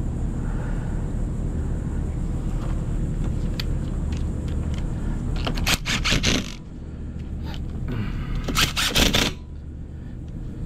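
Cordless impact driver with a socket adapter running in two short rattling bursts, about six and nine seconds in, driving the bolts of a power wheelchair's drive wheel home. A steady low rumble runs underneath, with a few small clicks from handling the tools.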